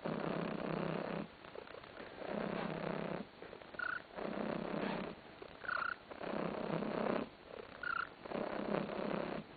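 Domestic cat purring loudly in pulses of about a second, each followed by a short pause, with a brief high squeak three times.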